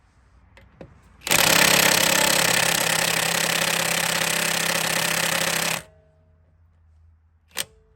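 Earthquake 3/4-inch cordless impact wrench hammering for about four and a half seconds on setting 3 against a tight bolt that will not break loose, then stopping abruptly. A single sharp click follows near the end.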